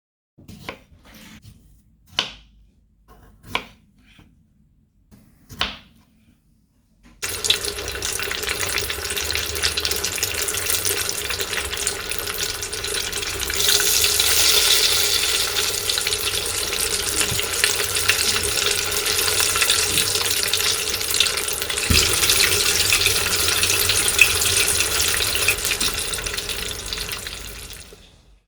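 A few short knocks, then battered chicken wings deep frying in hot oil. The sizzle starts suddenly about seven seconds in, runs on as a dense crackling and fades away near the end.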